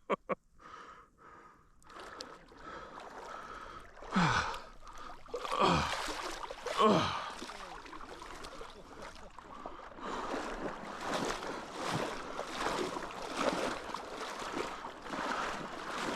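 A man's astonished gasps and exclamations, three drawn-out sounds each falling in pitch, a few seconds in. Then a soft regular scuffing about twice a second.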